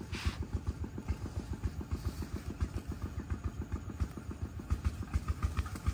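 An engine idling nearby, a fast, even low thudding that holds steady.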